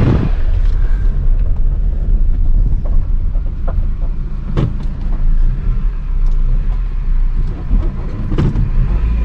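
Car engine and road noise heard from inside the vehicle while driving slowly, a steady low rumble, with two brief knocks about four and a half and eight and a half seconds in.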